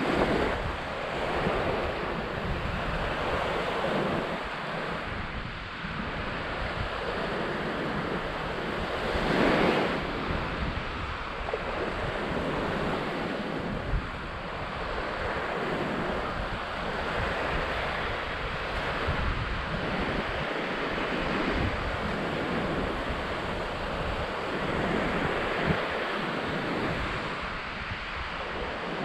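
Wind rushing and buffeting the microphone in uneven gusts, with a stronger swell about nine and a half seconds in.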